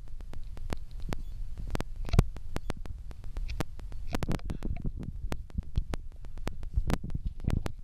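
Handling noise on a hand-held camera's microphone: a low rumble with irregular clicks and knocks as it is moved about and touched.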